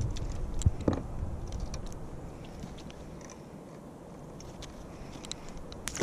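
Close handling noises: scattered light clicks and crinkles as gloved hands work over a plastic bag and small tackle, with a couple of sharper clicks in the first second.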